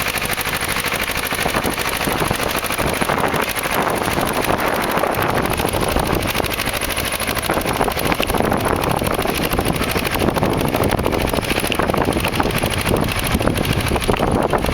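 Zetor 2511's two-cylinder diesel engine pulling a plough under load, running with a rapid, steady beat of firing strokes.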